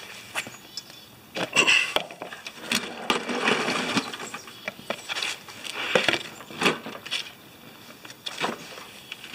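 Irregular knocks, clicks and scraping as a walk-behind lawn mower is handled and tipped onto its side to drain off excess engine oil, loudest through the middle.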